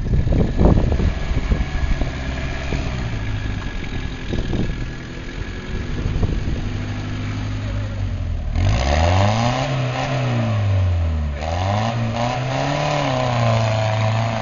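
Off-road 4x4's engine running, with a few knocks and thumps in the first couple of seconds. About eight seconds in the revs rise and fall twice, then hold steady.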